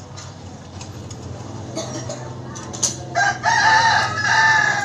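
A rooster crowing once, about three seconds in: a couple of short notes and then a longer held one, over a low steady hum. A few light clicks of small metal bike parts being handled come before it.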